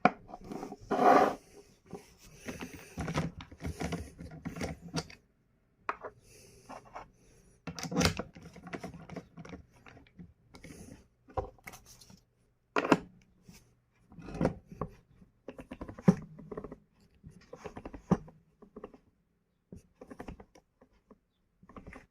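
Irregular clicks, knocks and scraping, with a few louder knocks spaced a few seconds apart.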